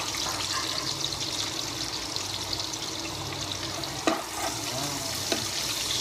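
Garlic and chopped onion sizzling in hot oil in a frying pan, a steady crackling hiss. A spatula knocks against the pan about four seconds in and again a second later.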